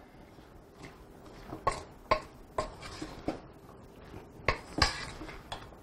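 Wooden spoon stirring chunky pico de gallo in a stainless steel mixing bowl, knocking against the metal bowl in a string of irregular clanks that ring briefly.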